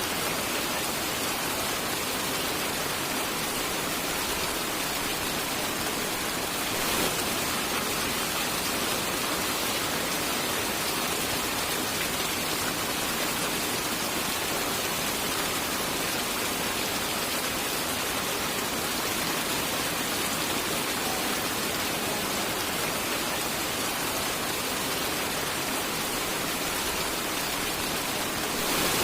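Steady, dense rainfall, an even hiss of many drops, with one brief louder swell about seven seconds in.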